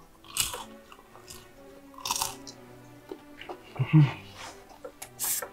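Close-miked crunching bites and chewing of battered, deep-fried Korean tempura (twigim): sharp crunches about half a second in, around two seconds in and near the end, with a short hum about four seconds in.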